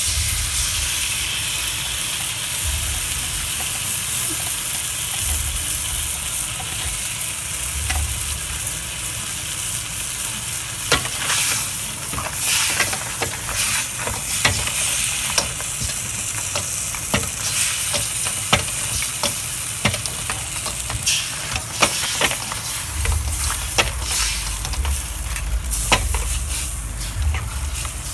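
Crabs in a sauce sizzling in a hot stainless wok while being stirred and ladled. A steady high sizzle runs under frequent sharp clacks of the ladle and crab shells against the pan, which come most often from about eleven seconds in.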